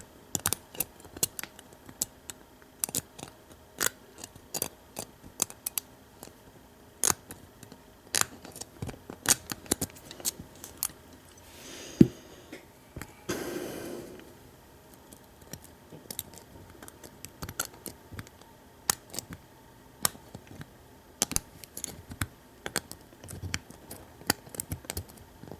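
Lock pick and tension wrench working in the keyway of a rusty Master Lock No. 5 padlock: irregular small metallic clicks as the pins are pushed up one at a time, with one louder sharp click and a brief scraping about twelve seconds in. The pins are stiff to move, which the picker blames on the rust inside the lock.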